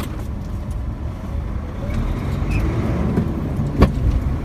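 Truck's diesel engine running in the cab while driving slowly in fifth gear, with road noise; the engine grows a little louder about halfway through. A single sharp click near the end.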